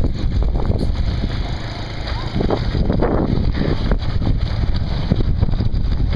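Wind rumbling on the microphone over a small kids' ATV engine running as it tows a wheeled bench cart rolling along the pavement.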